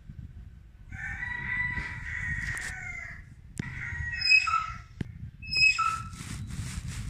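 Rooster crowing: one long crow starting about a second in, followed by two shorter calls, over a steady low rumble.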